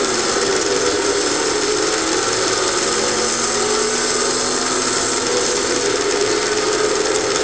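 Recorded stock-car engine sound of a race car lapping at speed, played back as part of a Hot Wheels Legends to Life diecast action set: a steady buzzing drone whose pitch wavers slowly.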